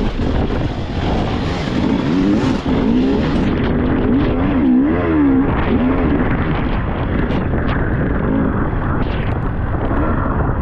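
Off-road motorcycle engine being ridden, its revs rising and falling again and again.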